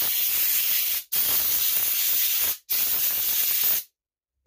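Spray hissing in three long bursts of about a second each, with short breaks between, as grime is sprayed off a dismantled Stihl MS170 chainsaw; it stops shortly before the end.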